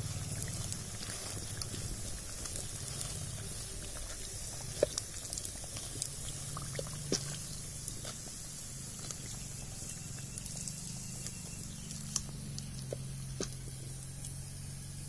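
Hot oil sizzling steadily around medu vadai deep-frying in a pan, with scattered sharp pops and clicks. The vadais are cooked through to a medium brown and are being lifted out.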